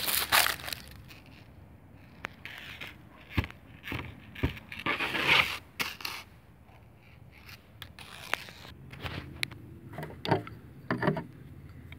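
Footsteps crunching through dry fallen leaves and grass, with scrapes, sharp clicks and knocks from objects being handled. The loudest crunches come at the start and a few seconds in.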